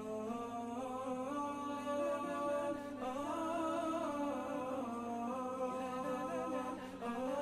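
Background vocal music: a humming voice carrying a slow melody of long held notes over a steady low drone.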